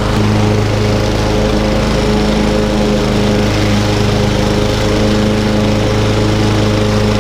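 Self-propelled walk-behind gasoline lawn mower running steadily with its blade engaged.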